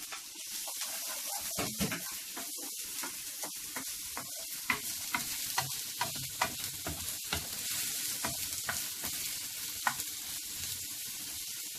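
Onion and garlic sizzling in hot oil in a pan: a steady hiss, with frequent short clicks and scrapes as they are stirred.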